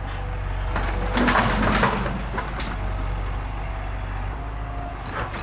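An engine running steadily with a low hum, louder with rough noise about one to two seconds in.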